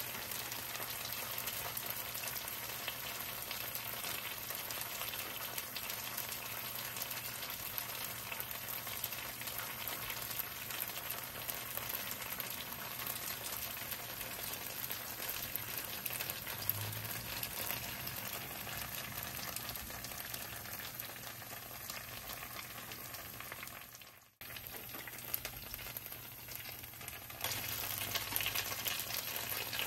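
Frozen winged gyoza frying in a nonstick pan, a steady sizzle of water and oil bubbling around the dumplings. It drops out briefly about three-quarters of the way through and is louder near the end.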